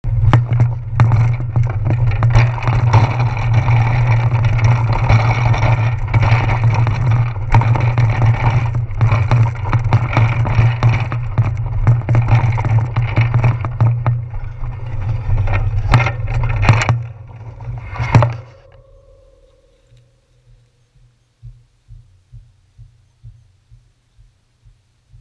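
Loud wind and road noise buffeting a handlebar-mounted action camera on a moving bicycle, with a few knocks from bumps. About three quarters of the way through it drops suddenly to a much quieter stretch with faint, evenly spaced ticks.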